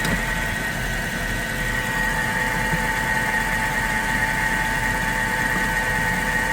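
Mercedes M273 5.5-litre V8 idling steadily, with a steady high-pitched whine over the idle. A short click right at the start.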